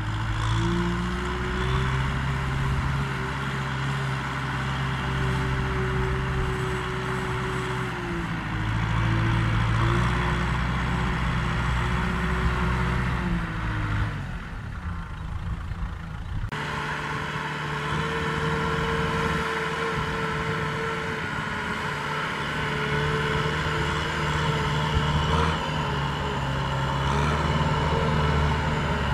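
Kubota M6040SU tractor's diesel engine running under load, pulling a trailer of rice sacks through sticky paddy mud. Its note sags and recovers a few times, and changes abruptly about two-thirds of the way through.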